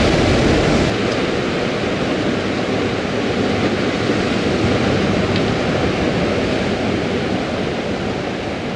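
Sea surf washing against rocks: a steady rush of breaking waves, with wind on the microphone. The low rumble eases about a second in.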